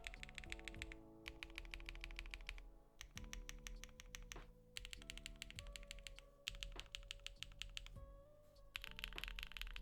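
Typing on a Neo80 mechanical keyboard with stock HMX Tequila linear switches on a POM plate and Domikey Terrazzo keycaps: fast runs of keystroke clacks in bursts with short pauses between them. Background music plays underneath.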